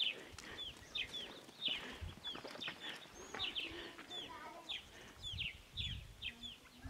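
Birds chirping: a quick series of short falling chirps, two or three a second, with a few low thumps about two seconds in and near the end.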